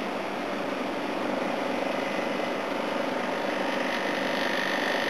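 Air-conditioning unit running on a brief test run after being switched on: a steady mechanical hum that grows louder about a second in, with a steady whine above it.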